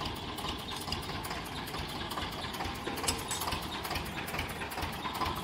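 An engine idling steadily with an even, rapid beat, with a single sharp tap about three seconds in.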